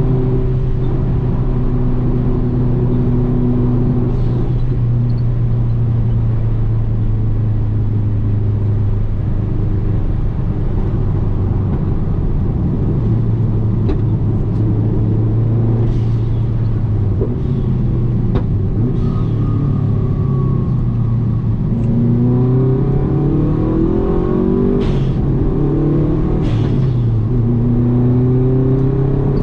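Car engine running hard, holding fairly steady revs for most of the time, then climbing in pitch about three quarters of the way through, with two sharp cracks near the end.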